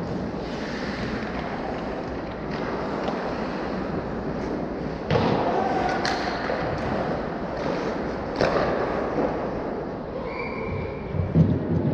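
Hockey game play in a rink: a constant noise of play with several sharp knocks of sticks and puck, the loudest about five, six and eight and a half seconds in.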